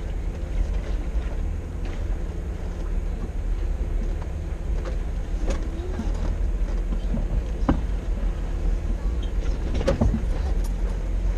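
Off-road vehicle engine running with a steady low rumble, with scattered knocks and rattles as it works along a creek bed.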